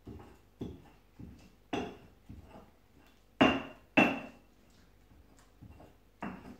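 Stone pestle knocking and grinding in a cobek, an Indonesian stone mortar, as it mashes and mixes a wet bumbu spice paste. Irregular knocks, roughly one or two a second, the two loudest about three and a half and four seconds in.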